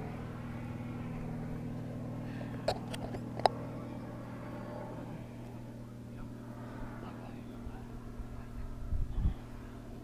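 Steady low mechanical hum. Three sharp distant pistol shots come a little under three seconds in, spread over less than a second, and a low thump follows near the end.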